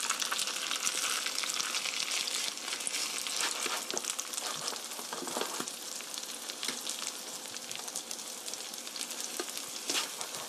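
Zucchini and ground-meat pancakes sizzling in oil in a frying pan while they are flipped, with scrapes and light knocks of a plastic slotted spatula against the pan.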